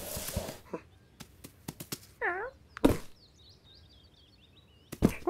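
Cartoon sound effects of a cat pushing a small cardboard parcel: a scrape at the start and a few light clicks, a short trilling call about two seconds in, then a loud thump of the box near three seconds. Faint high bird twittering follows, and another thump comes near the end.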